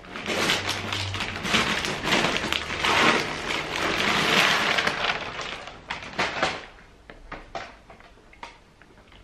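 Christmas gift-wrapping paper being torn and crumpled off a present, crackling for about six seconds, then fainter rustling and clicks of a plastic-bagged item.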